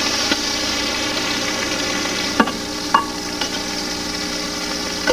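Metal serving spoon clinking against a china platter a few times as vegetable sauce is spooned onto spaghetti, over a steady hiss.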